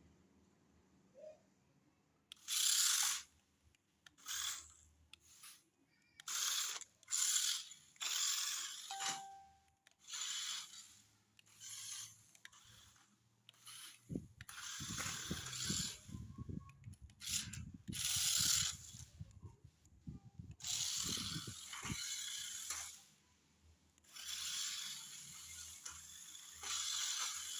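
Toy remote-control off-road car's small electric motor and plastic gearbox whirring in repeated short bursts, stopping and starting as it is driven in spurts, with crackling from the wheels on the ground in the middle stretch.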